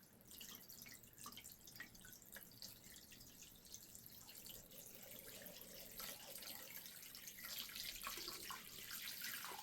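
Faint trickling and dripping of brick acid being poured into a plastic washing-up bowl over a rusty axe head, growing a little louder in the second half.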